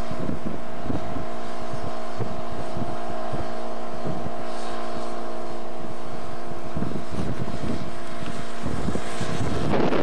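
An engine runs at a steady pitch, while wind buffets the microphone in irregular low thumps.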